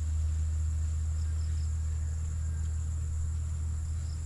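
Crickets or other insects chirring steadily, with small chirps now and then, over a loud, steady low rumble.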